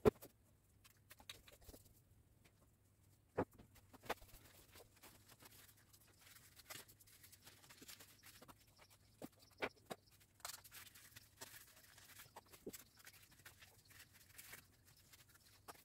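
Faint rustling of packaging with scattered light clicks and knocks as products are handled and unpacked from an order box.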